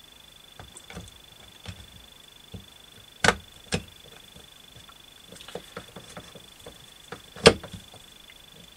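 Metal engine parts clicking and knocking as a clutch basket is worked onto the crankshaft of a small motorcycle engine's crankcase: scattered light clicks, two sharper knocks about three seconds in, and the loudest knock near the end.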